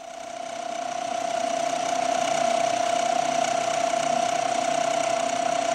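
A 1-inch roughing end mill on a Bridgeport milling machine cutting into a metal block: a steady whine over a chattering hiss. It grows louder over the first two seconds as the cutter bites deeper, then holds steady.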